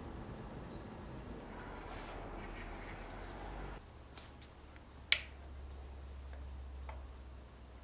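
Faint household background that drops away a little under four seconds in, followed by a few light clicks and one sharp, loud click about five seconds in.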